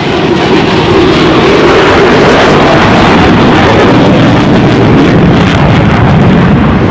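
Jet noise from a Dassault Rafale's twin Snecma M88 turbofans, very loud as the fighter passes close. It swells during the first second, then holds as a loud, steady rush.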